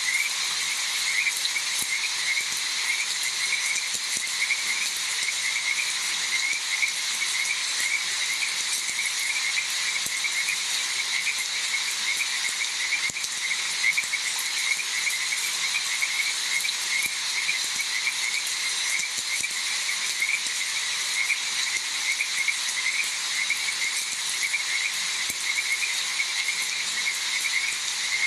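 A dense chorus of frogs calling steadily, many rapid repeated calls overlapping, over a steady hiss of rain.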